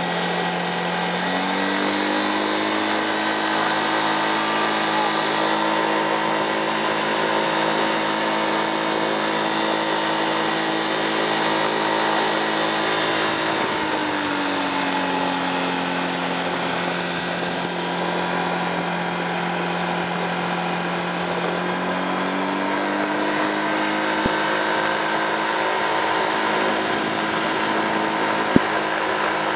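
Fox V5 ultralight's piston engine and propeller running steadily while taxiing after landing. The engine speeds up about a second and a half in, drops back about halfway through, and speeds up again about two-thirds of the way through.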